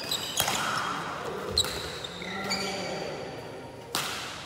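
Badminton rackets striking the shuttlecock in a rally: three sharp hits, about half a second in, at about a second and a half, and near the end, each followed by the echo of a large hall. Brief high squeaks, likely from shoes on the court floor, fall between the hits.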